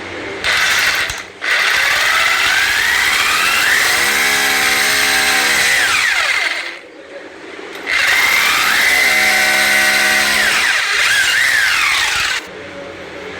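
Electric drill with a 6 mm bit drilling, in a short burst and then two long runs with a brief pause between. The motor's whine rises in pitch as each run starts, then holds steady.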